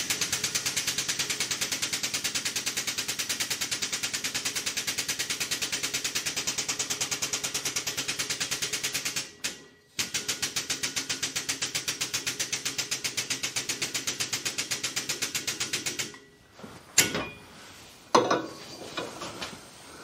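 Air-driven pump of a hydraulic shop press cycling in a fast, even chatter of about eight strokes a second, driving the ram to push a keyway broach through a pulley bore. It stops briefly about nine seconds in, starts again, and stops about sixteen seconds in, followed by a few knocks and clatter.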